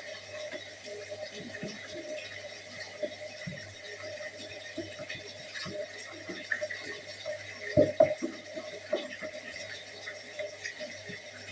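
Dishes and utensils knocking and clinking while being handled at a kitchen sink, with a louder clatter about eight seconds in, over a steady low hum.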